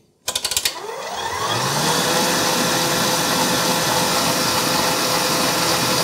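KitchenAid 7-quart bowl-lift stand mixer switched on with a few quick clicks. Its motor winds up in pitch over about a second, then runs steadily with a constant hum and whine.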